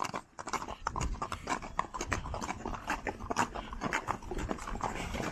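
Horses' hooves clip-clopping on an asphalt road: a dense, uneven run of sharp clicks.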